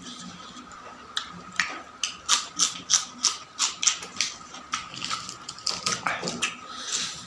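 Close-miked chewing of crunchy food: a run of wet crunches at about two to three a second.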